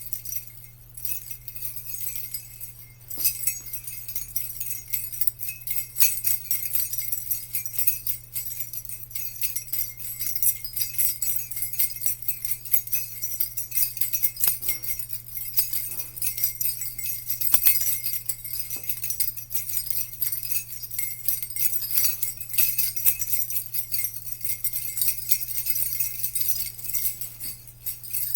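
Jingle bells shaking continuously: a dense, high, shimmering jingle with irregular louder shakes, over a steady low hum.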